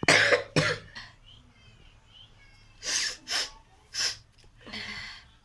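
A person sneezing: a loud double burst right at the start, then four shorter, fainter bursts in the second half.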